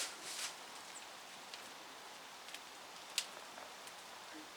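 Quiet background hiss broken by a few light clicks and taps, the sharpest about three seconds in.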